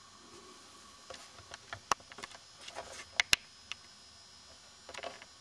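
Light clicks and ticks of small metal solenoid-valve parts being handled in the fingers: the plunger tube, spring and diaphragm assembly. The clicks come in an uneven scatter through the middle, with two sharper ones, and a few more near the end.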